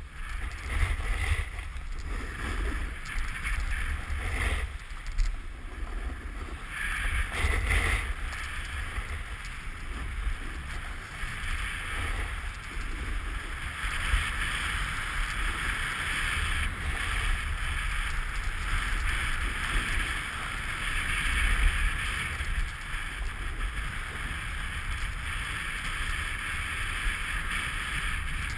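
Snowboard sliding over bumpy, cut-up piste snow: a continuous scraping hiss that swells and eases with the turns, mixed with low wind buffeting on the microphone.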